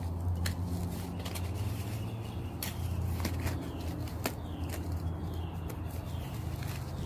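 Packaging being pulled open and handled, giving irregular sharp crackles and clicks over a steady low hum.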